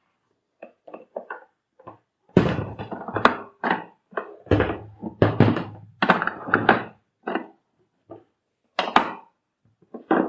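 Irregular knocks, clicks and thunks of a vacuum cleaner's hard plastic parts being handled and fitted together, with several heavier thuds between about two and seven seconds in.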